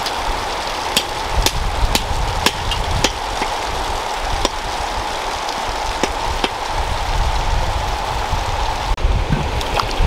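Outdoor ambience: a steady rushing noise with a steady hum. A run of sharp clicks comes about twice a second for the first few seconds, then a few scattered ones.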